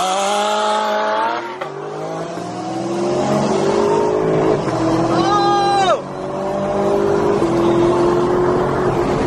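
Chevrolet Camaro SS V8 at full throttle, heard from inside the cabin, accelerating hard in a street race. The engine note climbs in pitch and drops with an upshift about one and a half seconds in, climbs again, then shifts again about six seconds in.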